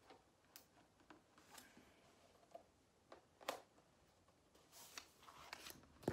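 Faint, scattered clicks and light knocks from a white flat-pack furniture panel being handled on a desk, with one louder knock about three and a half seconds in.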